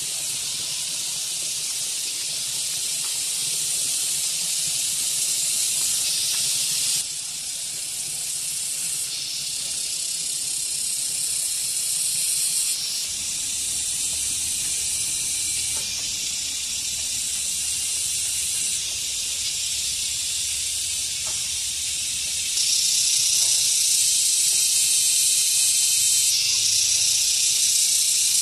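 Steady high-pitched chorus of insects, with cicadas the likely callers, whose level steps up and down abruptly several times.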